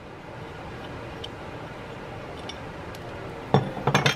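Metal hand tools and small carburetor parts clinking on a workbench: a few faint ticks, then a quick run of sharp knocks near the end as the needle-nose pliers and parts are set down.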